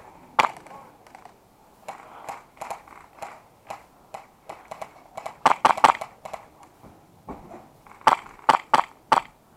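A series of sharp, irregular cracks and clicks, the loudest coming in quick clusters of three or four about halfway through and near the end.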